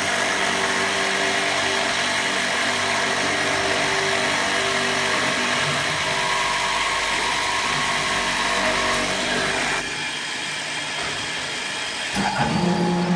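Electric door-lock hole drilling machine running steadily. The sound drops quieter about ten seconds in, then comes back louder near the end with a steady low hum.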